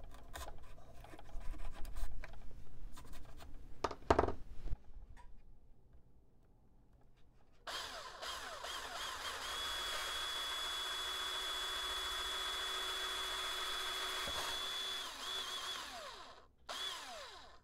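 A small hand pilot drill is twisted into the covered wooden fuselage of a model plane with faint scratchy ticks. After a short pause, a cordless drill with a 5/16-inch bit runs steadily with a high whine, boring through the fuselage side, and winds down near the end.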